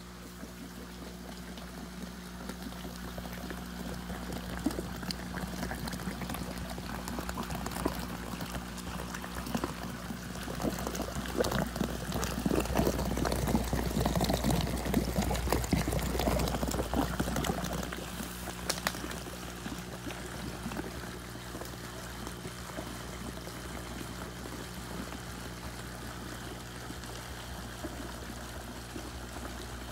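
Airlift vortex compost tea brewer running: water swirling and bubbling inside a plastic water-jug tank, a continuous pouring, splashing sound that grows louder around the middle and then settles. A steady low hum runs underneath.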